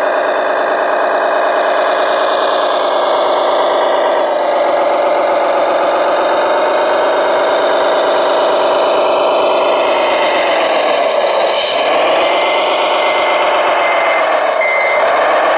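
Remote-control model construction machine running, with a steady whine from its motor or engine-sound module; the pitch sags and comes back up twice near the end.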